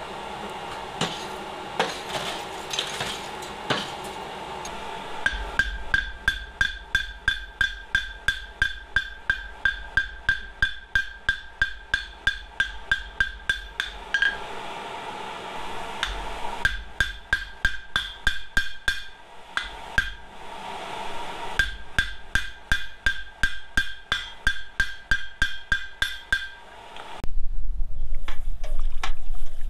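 Coal forge hissing, then a hand hammer striking a red-hot steel hammer head on the anvil horn, about three blows a second, each with a bright anvil ring, in three runs with short pauses. Near the end the hot head, forged from an old demolition chisel, is plunged into a pot of mineral oil to harden it: a sudden loud sizzling and bubbling.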